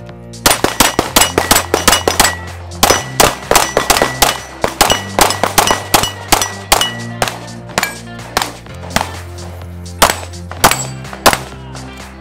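Pistol shots in a fast string with steel plate targets ringing as they are hit, starting about half a second in and thinning out in the second half, over background music with a steady bass line.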